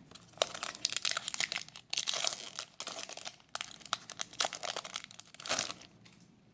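Foil booster-pack wrapper of a Yu-Gi-Oh pack being torn open and crinkled: a run of sharp crackles that stops near the end.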